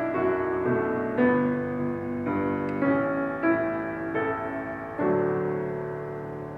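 Piano playing slow chords, the closing of a carol's accompaniment, with a last chord struck about five seconds in and left to ring and fade.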